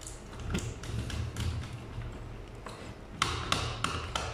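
Light taps and clicks of hands fitting a wire into a modular timer's terminal on a DIN rail, with scattered clicks at first and a quick run of about five sharper clicks near the end.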